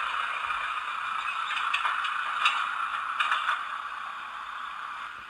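Model train sound decoder playing its 'general noise' station ambience effect through the small onboard speaker of a Fleischmann N gauge diesel multiple unit: a steady hiss-like background with a few clicks and clatters between about two and three and a half seconds in, fading away near the end.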